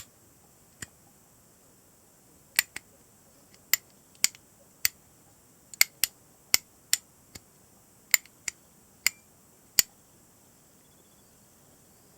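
Ushiwork Ushi Lever 5MT fidget toy, a miniature five-speed manual gear-shift lever, clicking as it is snapped through its gates: a series of sharp clicks at uneven intervals, some in quick pairs.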